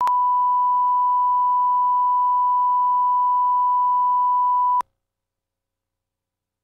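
Steady 1 kHz line-up tone, the reference test tone that runs with colour bars at the head of a broadcast videotape, cutting off suddenly almost five seconds in.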